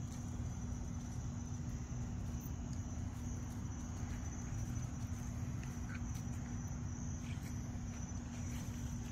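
Steady, unbroken high-pitched chorus of night insects such as crickets, over a constant low hum, with a few faint rustles.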